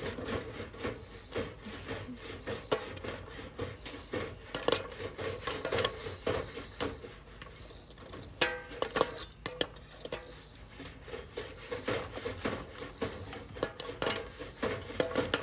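Metal scraping and irregular clicking from a Coleman campfire popcorn popper as its handle, which has come apart, is worked back together.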